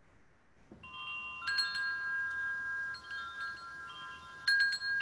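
Metal tube wind chimes ringing. The sound starts about a second in, and a few fresh strikes set off long, overlapping bell-like tones that hang on.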